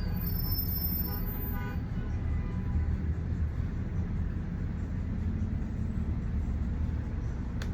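Road traffic: a steady low rumble of passing vehicles, with a few faint held tones in the first two seconds and a single sharp click near the end.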